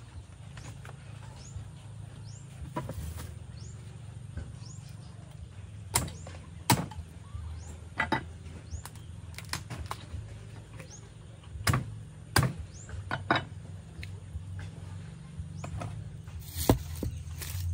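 Knife chopping raw chicken into pieces on a wooden tree-trunk chopping block: sharp, irregular knocks, about a dozen, mostly in the second half.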